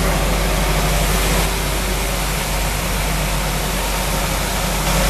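Military truck engine running steadily with a low, even hum.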